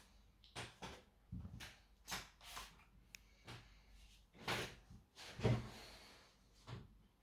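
Irregular light knocks, clicks and scrapes of hard parts and tools being handled during laptop disassembly, with two louder knocks a bit past the middle.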